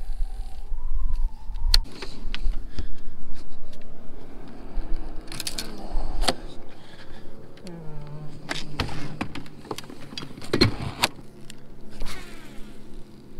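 Bass boat's electric trolling motor whining as it spins up about eight seconds in, then humming steadily. Scattered knocks and bumps on the boat deck, a wavering whine in the first couple of seconds, and low wind rumble on the microphone early on.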